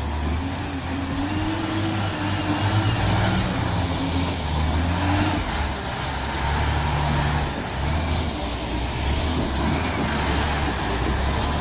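Heavy logging truck's diesel engine running under load, its pitch rising and falling as it works.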